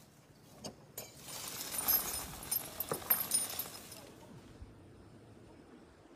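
Faint rustling of undergrowth with a few light clinks and knocks as a working Asian elephant walks among felled logs; it dies away about four seconds in.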